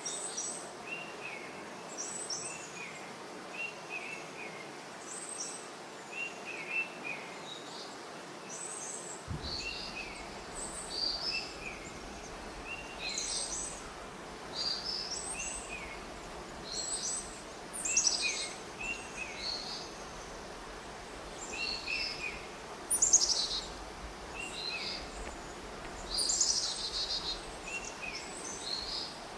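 Several birds chirping and calling in short repeated phrases over a steady background hiss. A low rumble joins about nine seconds in, and a louder, quickly falling call comes about two-thirds of the way through.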